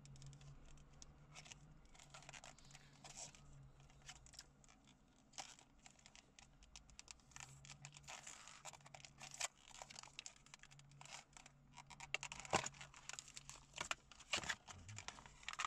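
Hands working open a plastic blister pack for a phone case: scattered faint crinkles, scrapes and clicks of plastic, growing louder near the end as the pack is pulled apart.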